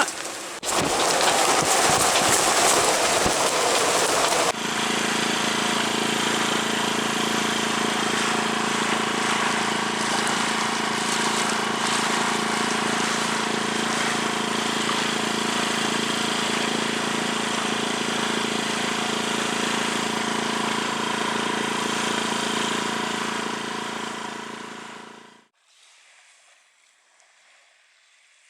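Wind buffeting the microphone for a few seconds, then a steady drone with several held tones, like a running motor, for about twenty seconds. The drone fades out abruptly near the end, leaving only a faint hiss.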